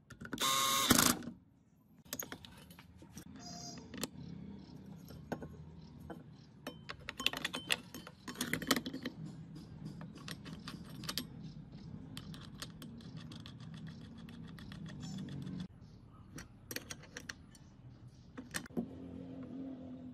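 A power drill drives a screw into a circular saw's motor housing for about a second at the start, then metal parts click and clink as the saw's blade, arbor nut and blade guard are fitted by hand, over a low hum that stops near the end.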